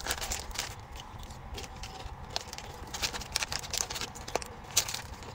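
Foil chip bag crinkling and crackling as it is handled and spooned from, in scattered short clicks, over a faint low rumble.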